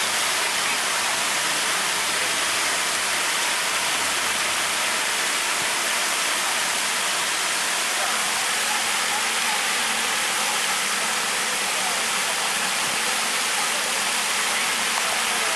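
Water spray from a fountain sculpture's nozzles falling onto a pond: a steady, even hiss like heavy rain on water.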